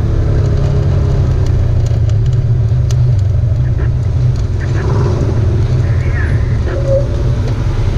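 Off-road vehicle's engine running steadily, a constant low drone.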